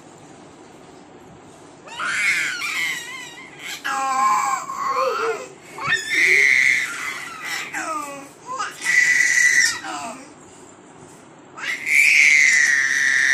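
A baby making long, high-pitched squeals, about five of them with short quiet gaps between, some wavering up and down in pitch.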